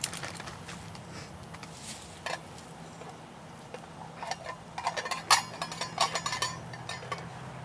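Light metallic clinks and taps of a metal camp cooking pot and its lid being handled, a few scattered at first and a busier cluster about four to six and a half seconds in, some ringing briefly.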